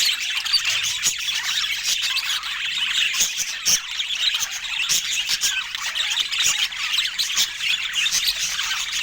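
Budgerigars chattering: a dense, unbroken stream of overlapping chirps, warbles and squawks.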